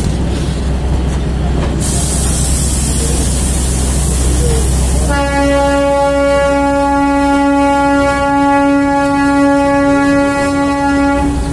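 Narrow-gauge passenger train running, with a steady low rumble of the coach on the track. About five seconds in, the train's horn sounds one long steady blast for about six seconds, then cuts off sharply. A high hiss comes a few seconds before the horn.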